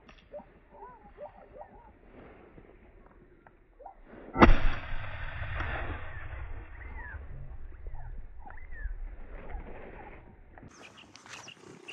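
A single 12-bore shotgun shot about four seconds in, with a brief trailing echo, over small birds chirping.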